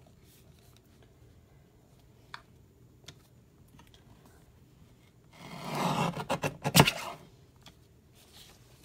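Sliding paper trimmer cutting through paper: after a couple of faint taps, a scraping slide of under two seconds about five seconds in, ending in a sharp click.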